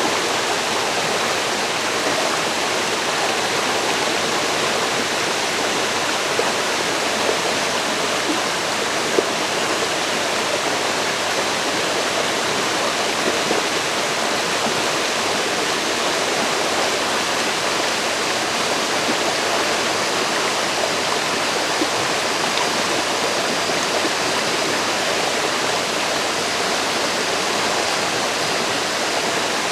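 River water rushing and splashing over rocks in a steady, unbroken wash.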